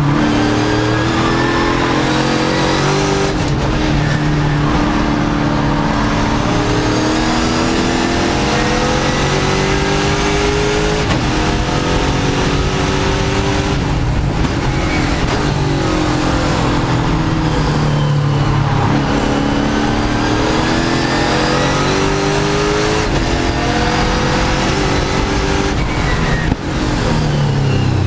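Touring race car's engine heard from inside the cockpit at race pace, revving hard, its pitch climbing in steps through the gear changes and sweeping down when it brakes for corners.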